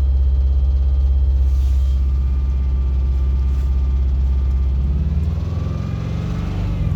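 Subaru EJ205 turbocharged flat-four engine running with a rhythmic knocking from worn bearings, revving up about five seconds in.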